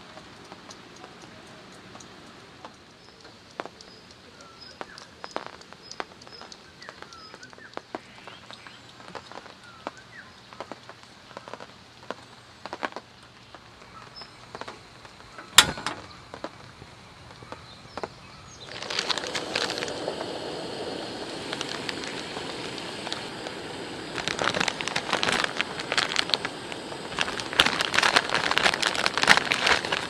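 Rain dripping steadily off a camping tarp with birds chirping faintly. About halfway through comes a single sharp click as the camp stove is lit. From about two-thirds in, the gas burner runs and water in an aluminium mess tin comes to a rolling boil, bubbling and crackling louder toward the end.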